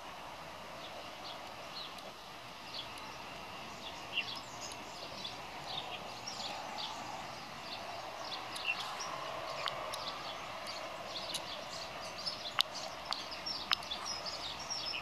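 Many short, high bird chirps scattered over a steady background rush, with a few sharp clicks near the end.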